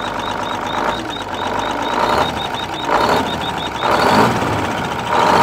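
Diesel engine of an old semi truck, left sitting for 25 years and running on stale diesel, revved by hand in several surges over its idle, with a rapid high ticking through the first half. It sounds like she's hurt and doesn't sound exactly like it should.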